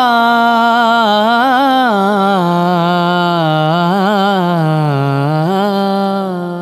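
A man's voice singing one long, ornamented held note in a Hindu devotional bhajan to Lord Ram. The pitch winds up and down, sinks lower about two seconds in and rises again near the end, where it fades.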